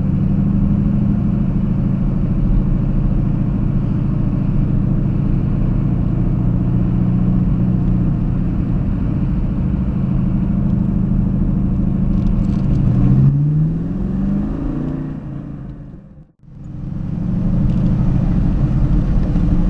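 TVR Griffith's Rover V8 engine running steadily, heard from inside the car, with a rise in revs about two-thirds of the way through. The sound then fades out almost to nothing and comes back as the engine running again.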